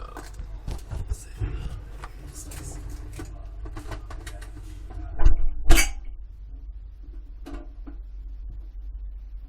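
Close-up knocks and rattles of a dishwasher being loaded and handled, heard from a phone inside it, with a steady low hum. Two loud clunks about five seconds in, the second the loudest.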